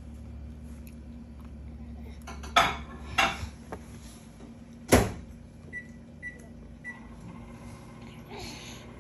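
Kitchen clatter of dishes and utensils: two sharp knocks, then a louder bang about five seconds in, followed by three short high electronic beeps like an appliance keypad or timer.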